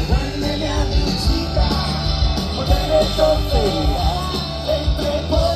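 Rock music with a singer over a steady beat.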